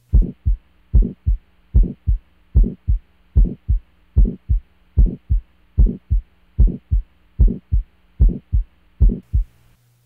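Heart sounds recorded through a stethoscope: a steady heartbeat of about 75 beats a minute, each beat a pair of low thumps, with a harsh crescendo-decrescendo systolic murmur typical of aortic stenosis.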